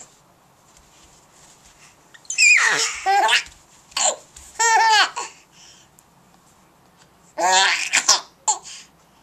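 Baby laughing in three high-pitched bouts: a squeal that slides down in pitch a little over two seconds in, a run of quick pulsed laughs around four to five seconds, and another burst of laughter near the end.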